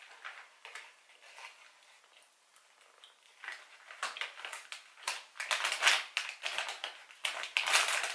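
A person chewing a soft protein cookie close to the microphone: scattered mouth clicks and crackles, sparse at first and busier and louder from about three and a half seconds in.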